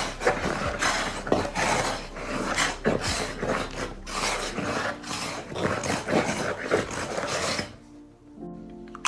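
Rasping, scraping strokes of a Foley prop being rubbed, repeated irregularly at a brisk pace, stopping near the end where soft music tones carry on.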